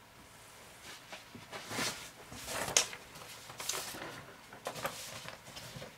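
Quiet handling noises: soft scattered rustles and knocks, with one sharp click a little under three seconds in.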